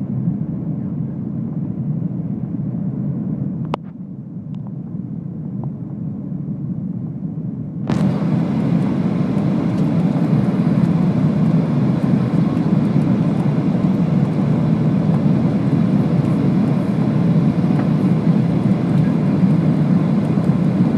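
Jet airliner noise during landing: a steady low rumble, with a click and a slight drop about four seconds in. About eight seconds in the noise jumps suddenly to a louder, hissier rush, which then holds steady.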